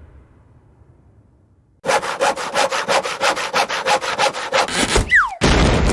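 Cartoon sound effect of a hand saw cutting wood: quick back-and-forth saw strokes, about four or five a second, for about three seconds. A short falling whistle follows, then a new loud noisy effect begins just before the end.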